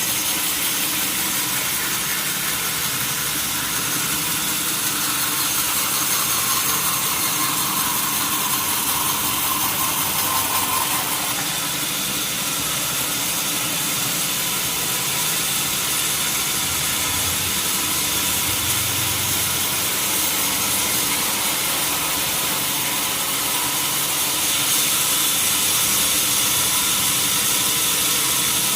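Sawmill saw machinery running continuously, a steady high hiss over a low mechanical hum, as timber is sawn.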